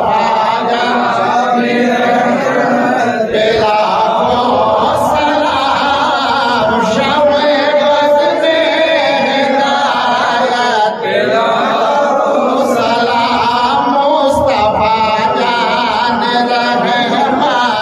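A man singing a Salam, the Urdu devotional salutation to the Prophet, in long, wavering drawn-out notes into a microphone.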